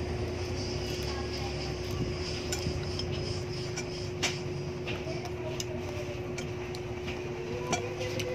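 Scattered light clicks and clinks of dishes and bowls during a meal of fried tilapia, a few sharper ones about four seconds in and near the end, over a steady background hum.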